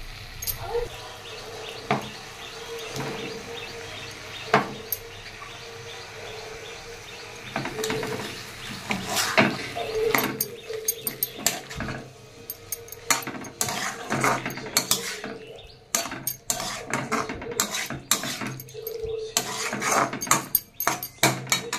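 Metal spatula scraping and clicking against a metal kadai as a thick masala with vegetables is stirred and fried. The strokes are sparse at first and come thick and fast in the second half.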